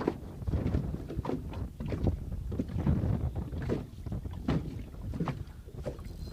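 Wind buffeting the microphone aboard a small fishing boat: a steady low rumble broken by frequent, irregular short slaps.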